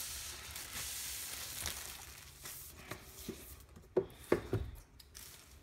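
Plastic shrink wrap being peeled off a cardboard box by hand, crinkling and crackling for the first couple of seconds. A few light knocks follow about four seconds in as the box is handled.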